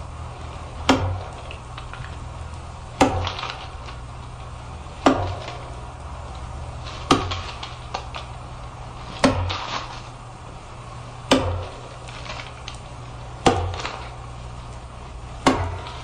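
Axe chopping into wood: a sharp chop about every two seconds, eight in all, some followed by a lighter second knock, over a steady low hum.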